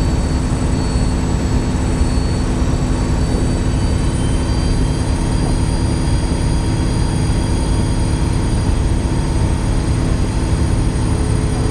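Dennis Trident 2 double-decker bus with Voith gearbox running under way: a low, steady engine drone with a loud, squealing turbocharger whistle held as several steady high-pitched tones above it.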